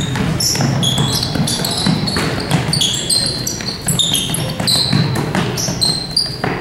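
A basketball being dribbled on a hardwood gym floor, with many short high squeaks of sneakers on the court and voices in the background.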